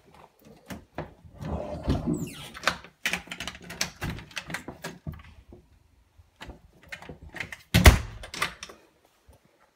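Knocking, clicking and rubbing from a phone being handled close against a door and wall. A louder thump comes near the end.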